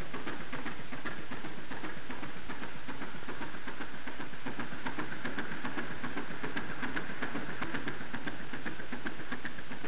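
Steady background hiss and low hum with a dense, irregular crackle of small clicks, typical of the worn soundtrack of an old film between narration.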